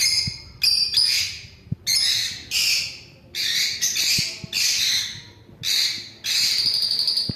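Lovebirds giving loud, harsh, high-pitched calls, about ten in quick succession, roughly one a second.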